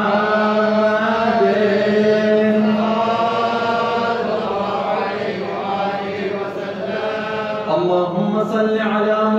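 A male voice chanting an Arabic devotional mawlid chant through a microphone and loudspeakers, in long drawn-out notes that bend slowly in pitch.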